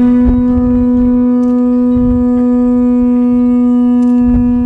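Hawaiian conch shell trumpet (pū) blown in one long, steady note, sliding up into pitch at the start and held without wavering, sounded in welcome.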